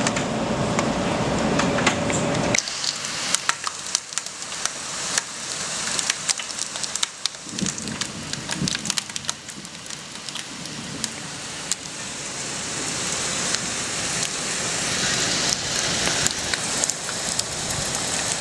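Rain and small hail hitting the window glass and stone ledge: dense irregular clicks over a hiss that grows steadily heavier toward the end. A steady hum with a held tone cuts off abruptly about two and a half seconds in.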